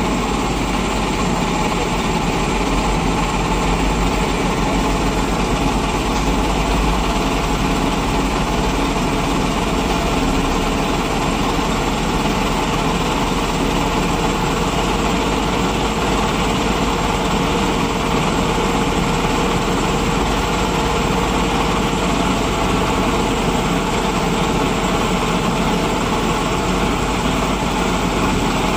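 Heavy vehicle engine idling steadily, an even mechanical drone that holds at the same level throughout.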